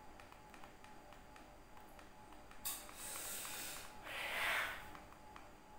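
Loose plastic LEGO pieces clicking and tapping as a hand rummages through a pile of them, with two short rustling hisses past the middle, the second one louder.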